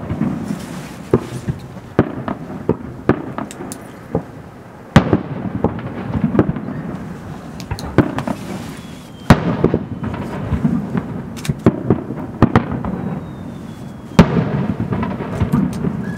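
Aerial fireworks shells bursting: three loud booms about four to five seconds apart, each trailed by a rolling echo, with smaller cracks and pops in between.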